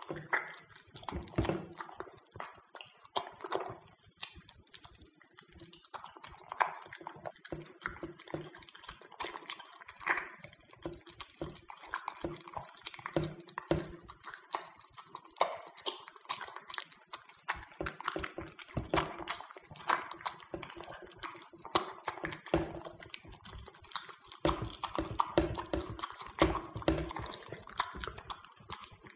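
Italian greyhound eating raw minced duck from a pottery bowl: a continuous run of wet smacking, chewing and licking clicks.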